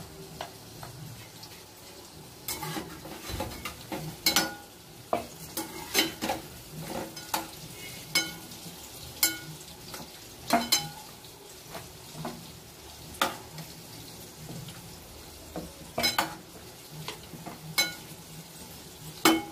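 Puran poli being rolled out with a wooden rolling pin on a round rolling board: irregular knocks and clicks about once a second as the pin rolls and taps against the board, some with a short ring.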